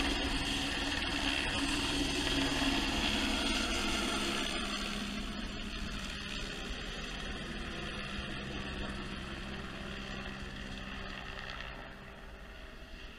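Helicopter flying past with its load line hanging, the rotor and turbine sound steady and loudest in the first few seconds, then fading as it flies away, with a further drop near the end.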